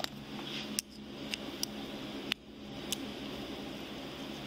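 Steel handcuffs being handled and unlocked with a key: a handful of sharp metallic clicks over a steady room hum.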